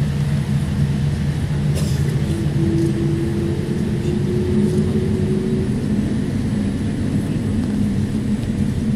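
Steady low rumble of a Boeing 787 taxiing slowly, heard from inside the cabin. A faint steady whine joins for a few seconds in the middle.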